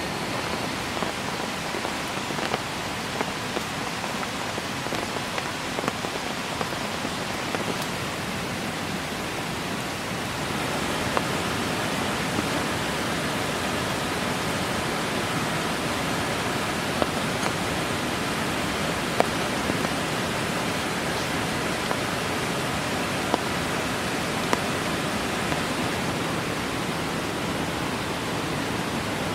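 Steady heavy rain, an even hiss with scattered sharp ticks, growing a little louder about ten seconds in.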